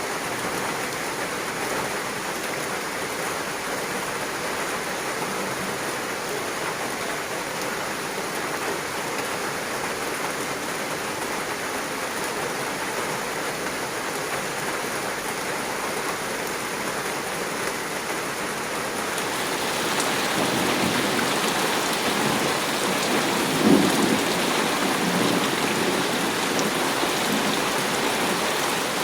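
Heavy monsoon rain falling steadily, growing louder and brighter about two-thirds of the way through. A short low rumble of thunder stands out near the end.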